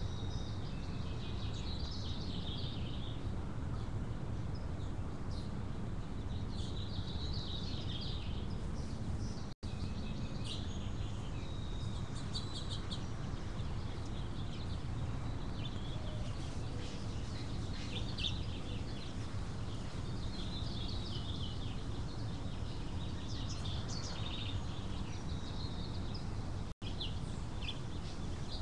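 Small birds chirping and singing in short snatches throughout, over a steady low background rumble. The audio drops out for an instant twice.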